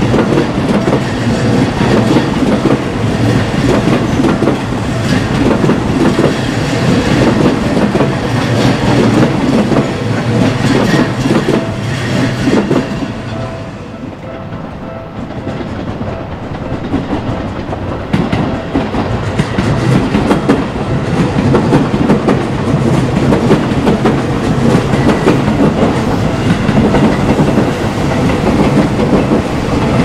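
Seibu Railway electric trains passing over a level crossing, wheels clattering over the rail joints. The noise eases off for a few seconds about halfway as the first train clears, then builds again as a second train arrives. The crossing's warning alarm keeps ringing under the train noise.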